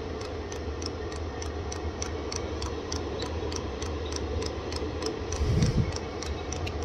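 Diesel heater's fuel dosing pump ticking evenly, several times a second, as it primes diesel through the fuel line, over the steady hum of the heater's blower motor. A brief low thump comes near the end.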